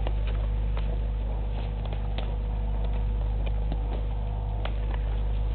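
Steady low electrical hum from the camera rig, with irregular soft clicks and crackles of a nyala cropping grass close to the microphone.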